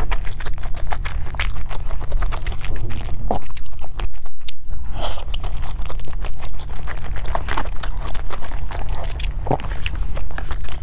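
Close-miked chewing of a steamed dumpling: irregular wet mouth clicks and smacks, over a steady low hum.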